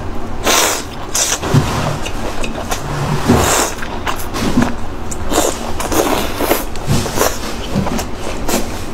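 Close-miked chewing of boiled tripe, with short, wet mouth sounds about once a second.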